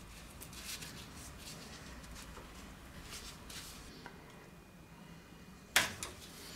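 A screwdriver scrapes faintly, metal on metal, as a retaining clip is worked onto the pivot pin of a clutch pedal linkage rod end. The work ends in one sharp metallic click near the end as the clip snaps onto the pin.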